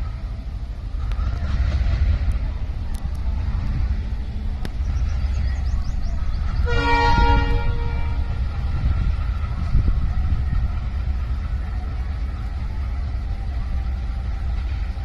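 Twin WDM-3A ALCO diesel-electric locomotives running with a steady low engine rumble as they pull away. About halfway through, the locomotive horn sounds once for about a second.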